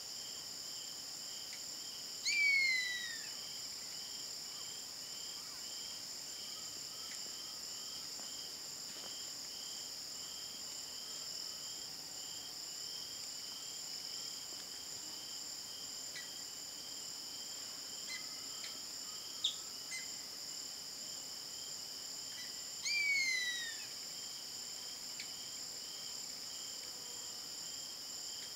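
Savanna hawk giving two long, hoarse screams about twenty seconds apart, each falling in pitch. A steady high insect chorus with a pulsing insect call runs underneath.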